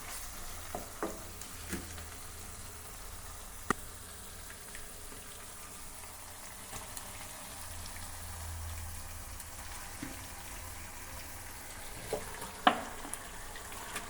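Onion and ginger-garlic masala frying in oil in a pan with a steady light sizzle. A few sharp clinks of a utensil against the pan cut through it, the loudest near the end.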